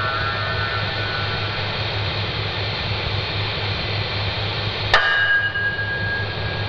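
Dark ambient noise drone: a dense hiss-like wash over a low throbbing hum, broken about five seconds in by a single sharp strike that rings on briefly.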